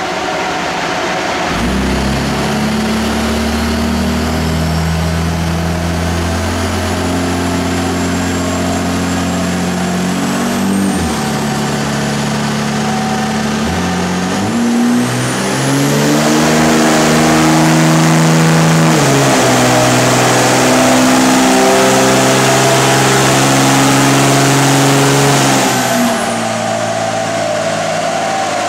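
Tuned 5.9-litre Cummins inline-six turbo diesel in a 2006 Dodge Ram running on a chassis dyno. Its note steps up and down in pitch several times, then from about halfway a louder full-throttle pull of some ten seconds with a high turbo whistle that rises and holds, until the throttle is lifted near the end.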